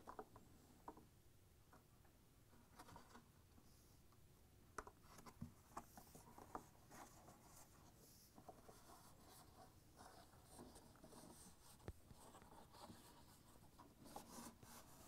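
Faint rubbing, scratching and light clicks as a rubber tub gasket is worked by hand into the rim of a plastic washer outer tub half, with one sharper click about twelve seconds in.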